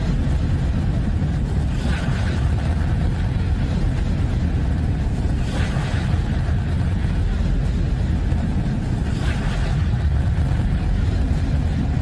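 Space sound presented as the sound of Triton, Neptune's moon: a steady deep rumble with a hissing swell that rises and fades three times, about every three and a half seconds.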